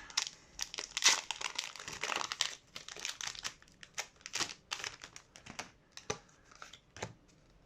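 Foil wrapper of a Pokémon Trading Card Game booster pack crinkling as it is torn open and handled, with dense crackles for the first few seconds that thin out to scattered ones toward the end.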